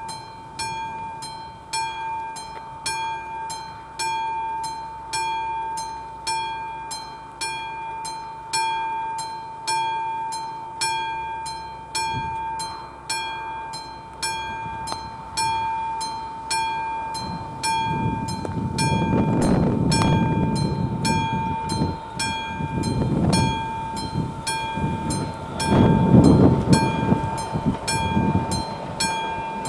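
Classic level-crossing warning bell striking at an even pace, each stroke ringing on at one clear pitch. From about two-thirds of the way in, a passenger train runs in over the crossing underneath the bell, its wheels knocking in loud surges, loudest near the end.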